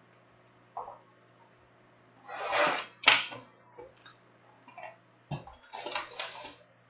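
Shrink-wrapped cardboard trading-card boxes being handled: plastic wrap rustling and boxes sliding, in two noisy bursts, the loudest about two and a half seconds in and another about six seconds in.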